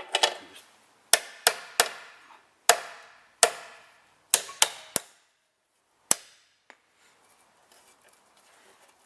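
Hammer blows on a bolt used as a drift, driving a drilled-out ball joint rivet out of the suspension arm: about a dozen sharp metal-on-metal strikes, irregularly spaced, each with a short ring, stopping about six seconds in.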